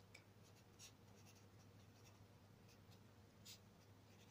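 Faint scratching of a ballpoint pen writing on lined paper in short, irregular strokes, over a low steady hum.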